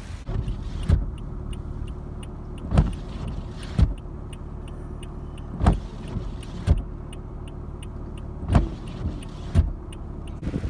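Car with its engine running: a steady low hum, a faint clicking about three times a second, and loud thumps that come in pairs a second apart, about every three seconds.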